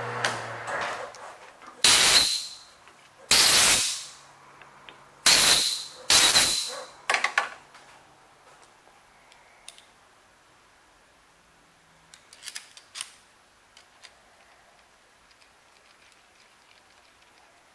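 Four short, loud blasts of hissing air, about two, three and a half, five and a half and six seconds in, each cutting in suddenly and dying away within half a second, typical of a compressed-air blow gun clearing a lathe chuck. A low machine hum stops just at the start, and a few faint clicks of handling metal parts follow.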